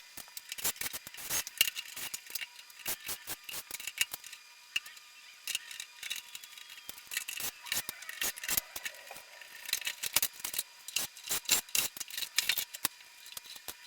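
Irregular run of small sharp clicks, rattles and scrapes: tools and plastic parts being worked as a top-load washing machine is taken apart.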